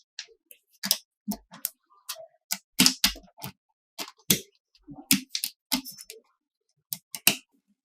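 Irregular sharp clicks and taps of small hard parts being handled and set down while a model is built by hand, about a dozen with short silences between them.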